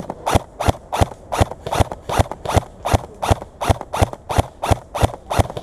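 Running footsteps on dry ground, a steady crunching stride of about three steps a second.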